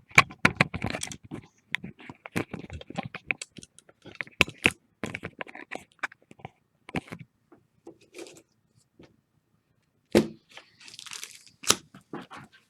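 Irregular sharp clicks and cracks of objects being handled on a desk, with a brief crinkling rustle of plastic or paper about eleven seconds in.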